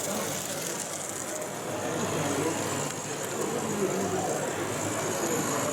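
Indistinct chatter of many people talking in a large hall, over a steady background hiss.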